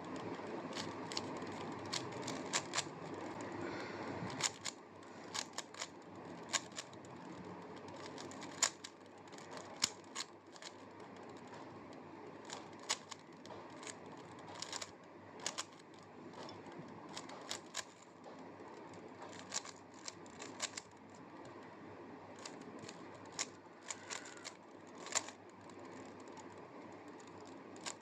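A plastic Rubik's Cube being twisted quickly by hand: rapid, irregular clicking and clacking of its layers turning, with short bursts of turns and brief pauses between them.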